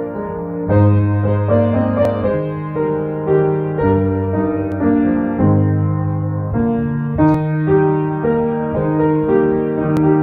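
Piano playing a slow, gentle piece, with held chords that change about once a second.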